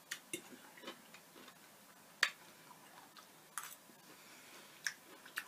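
Faint, scattered clicks of a plastic fork tapping and scraping on a plate, about seven in all, the sharpest a little over two seconds in.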